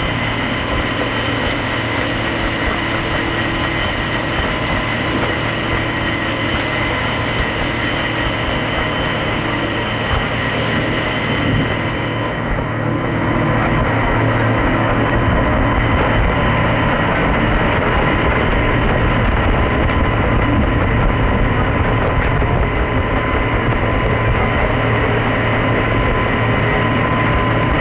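Boat engine running steadily under way, with a steady low hum and rushing noise, getting a little louder about halfway through.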